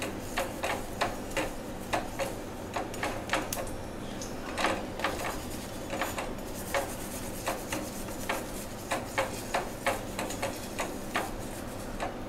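Steel spoon tapping and scraping against a non-stick tawa while pressing and turning a frying paratha: irregular light clicks, about three a second, over a steady hiss.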